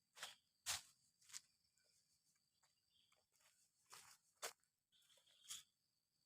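About six short, scattered knocks and scuffs over near silence, the loudest coming just under a second in.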